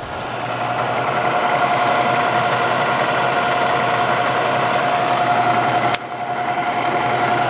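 Bridgeport Series 1 2 hp milling machine running at high spindle speed with the power quill down feed engaged, a steady mechanical whine. A sharp click about six seconds in, after which the sound drops and builds back up.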